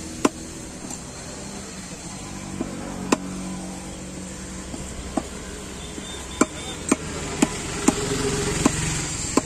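A large knife chopping stingray meat into pieces on a wooden stump block, each stroke a sharp knock of the blade into the wood. There are a few spaced-out chops at first, then about two a second from around six seconds in, over a steady low rumble.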